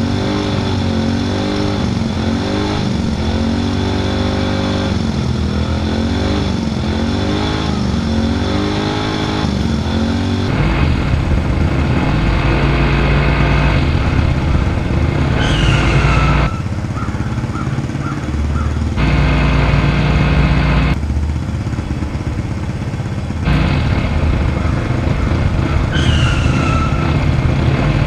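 A vehicle engine revving up and falling back over and over. About ten seconds in it gives way to a deeper, louder engine running in abruptly cut segments, with a falling whistle heard twice.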